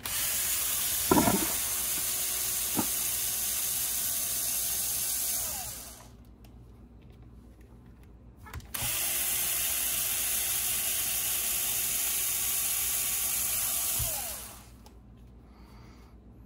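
Cordless drill running in two steady runs of about five seconds each, backing the screws out of an RC car's shock mounts. Its whine winds down at the end of each run, and there is a sharp click about a second in.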